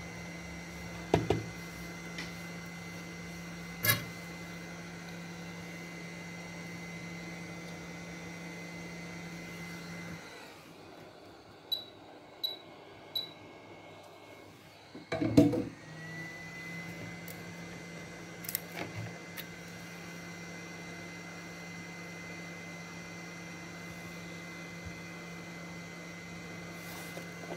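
Steady electrical hum with a thin high whine from the bench's hot-air rework station, running. About ten seconds in it stops, three short high beeps sound, and then it starts again with a rising whine. A few sharp clicks and knocks of tools on the board are heard at times.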